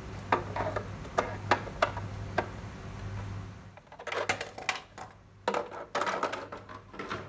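Scattered clicks and knocks of a hard 3D-printed plastic boat hull and its fittings being handled and set against a tabletop, with a steady low hum underneath.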